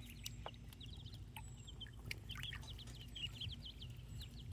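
A group of baby chicks and ducklings peeping, many short high peeps overlapping in quick succession.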